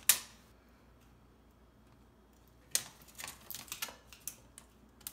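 A metal tape measure handled against a wall: one sharp click at the start, then a quick, irregular run of lighter clicks and taps about three seconds in.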